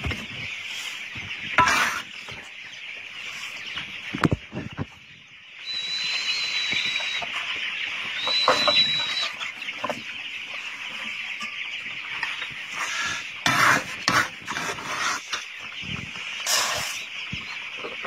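A brood of young chicks peeping in a dense, high-pitched chorus, with a few longer single peeps standing out. Scattered knocks and rustles break in several times and are the loudest sounds.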